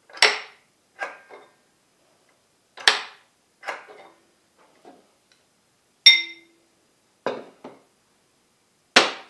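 Heavy steel horseshoe magnets from a magneto being set down and pulled off steel plates and the charger's pole pieces: a run of sharp, irregular metal clacks and knocks. One clang about six seconds in rings briefly.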